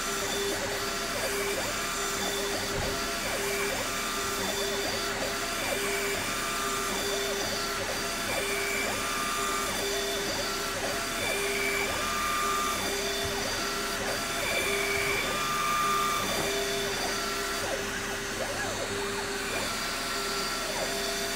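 Shapeoko HDM CNC router milling EVA foam: a steady spindle whine over the hiss of a dust-collection vacuum nozzle. A buzzing tone switches on and off about once a second as the cutter moves along its toolpath.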